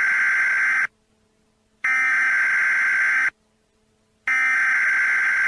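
Emergency broadcast alert tones: three bursts of harsh electronic tone, each about a second to a second and a half long, with about a second of silence between them.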